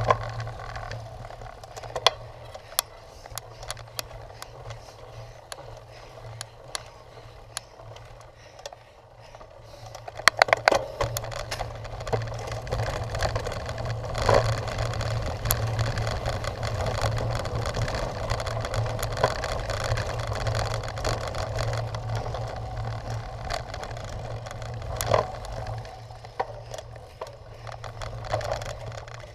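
Cyclocross bike being ridden over rough ground: steady tyre and drivetrain noise with frequent rattles and clicks from the bike, louder and busier from about ten seconds in.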